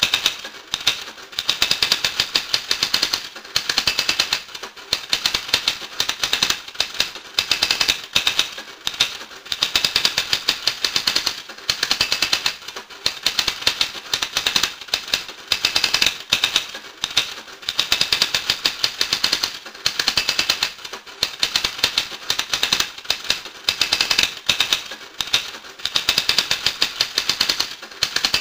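Dense, rapid clicking and clattering that swells in stretches of a second or two with short lulls between.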